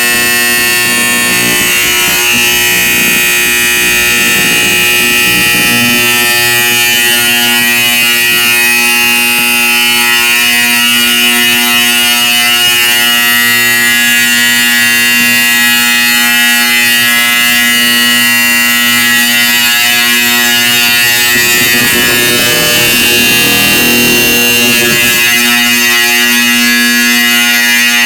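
Simplex 4040 Vibratone fire alarm horn with a dual projector, set off from a pull station and sounding a steady, loud, unbroken buzz.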